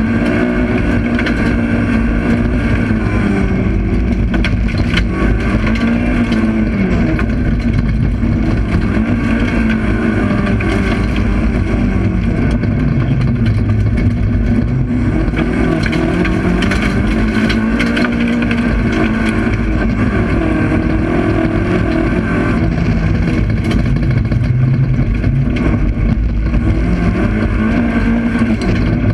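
Race car engine heard from inside the cabin, working hard, its revs climbing and dropping again and again as the car is driven flat out. Scattered knocks and clicks sound over the engine.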